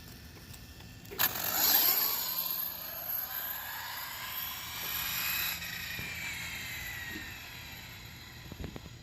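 OFNA Mutilator RC monster truck (a conversion) taking off about a second in, its motor whining and the pitch rising and falling over several seconds as it runs, then fading away.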